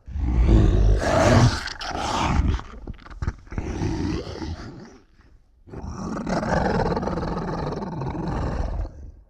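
Monster roar sound effects for a Godzilla-style kaiju: a roar, a shorter second one, then a long roar lasting about three and a half seconds.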